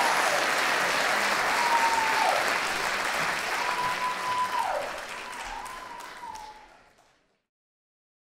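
Audience applauding, dying away and cutting off to silence about seven seconds in.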